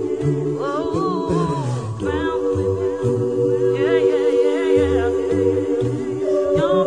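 An a cappella vocal ensemble singing without instruments: the backing voices hold a steady chord while a bass voice moves step by step underneath and a lead voice sings a melody with vibrato above.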